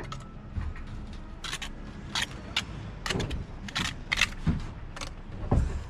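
Stones clinking and scraping against each other and the wall as they are set into a stone gable: an irregular run of sharp clicks and scrapes, with a duller knock near the end.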